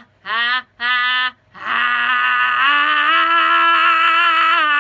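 A singer's voice doing a vocal exercise: two short sung notes, then one long held note from about a second and a half in that steps up in pitch partway through and wavers slightly.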